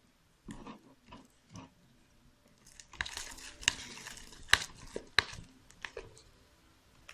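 Slime being stirred in a bowl: sticky squelching and scraping, with a stretch of wet rustling about three seconds in and several sharp clicks of the utensil against the bowl.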